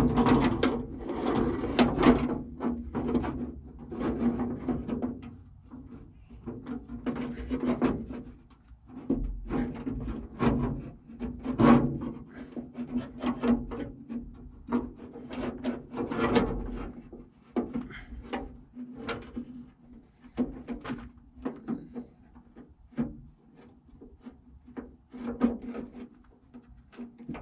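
Irregular clunks, clicks and scraping of a replacement door latch and hand being worked around inside the steel door of an M35A2 truck, metal knocking and rubbing against the door panel and window regulator track.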